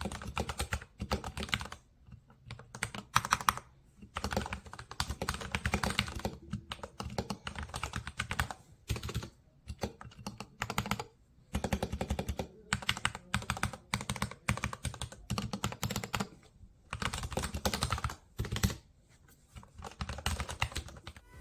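Typing on a Royal Kludge RK84 mechanical keyboard fitted with lubed replacement switches and new keycaps: rapid keystroke clacks in bursts of a second or two, broken by brief pauses.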